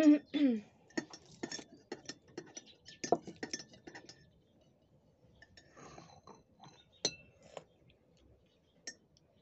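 Tableware clinking: a ceramic mug, saucer and plate being handled on a table as tea is drunk and cake taken, many short clicks in the first few seconds and one sharper clink about seven seconds in. A brief voice sound right at the start.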